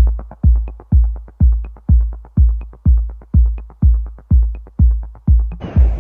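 Electronic dance music: a heavy kick drum about twice a second with quick hi-hat ticks between the beats. Near the end a steady rushing noise comes in under the beat.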